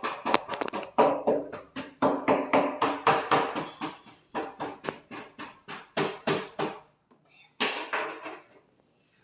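A rapid series of sharp knocks, about four or five a second, with short pauses about four and seven seconds in.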